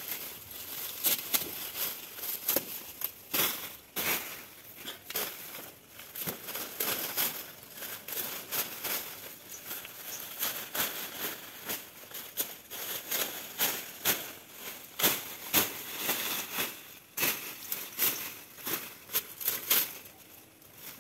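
Dry banana leaves and brush crackling and tearing as they are pulled away by hand and hacked with a machete, in irregular short strokes throughout.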